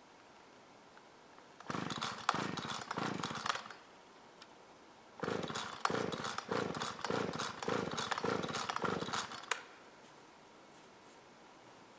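Husqvarna Rancher 455 two-stroke chainsaw running in two short spells, about two seconds and then about four, rising and falling about twice a second in the second spell. Each spell stops suddenly as the engine cuts out, the sign of a saw that will not idle, which the owner puts down to a failing carburettor.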